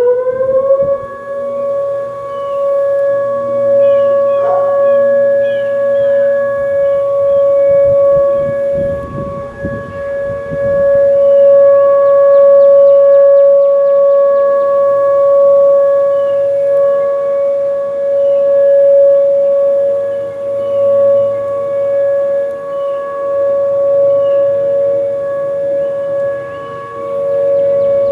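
Whelen electronic outdoor warning siren sounding a steady alert tone during a test. It rises to pitch in the first second, then holds one unwavering tone. Faint bird chirps are heard over it.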